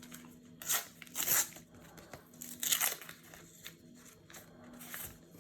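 Sticker packet wrapper and sticker cards being handled: several short bursts of crinkling and rustling.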